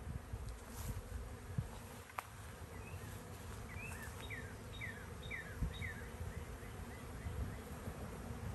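Honeybees flying in and out of a row of hives, a steady hum of many bees working at once: a colony foraging hard with nectar coming in. Around the middle a run of short falling chirps sounds over the hum.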